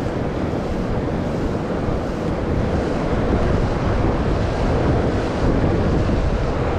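Steady rushing noise of moving river water, with wind buffeting the microphone.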